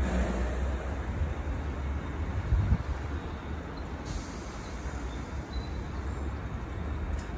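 Train running, heard from aboard: a steady low rumble and running noise, with one louder thump about two and a half seconds in.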